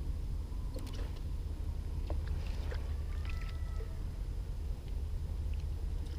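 Steady low rumble with scattered faint clicks and a few short high chirps between about one and four seconds in.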